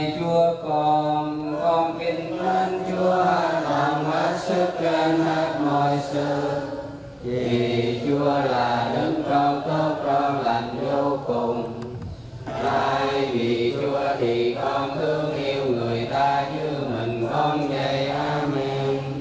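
A congregation's voices chanting prayers together in unison, in the sung style of Vietnamese Catholic prayer recitation. There are two short breaks between phrases, one about a third of the way in and one about two-thirds in.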